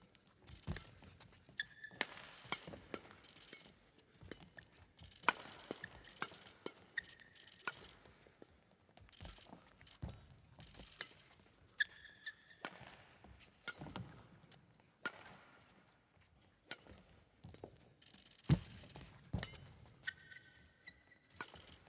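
Badminton rally: repeated sharp smacks of rackets striking the shuttlecock, with shoes squeaking briefly on the court floor and feet landing between shots.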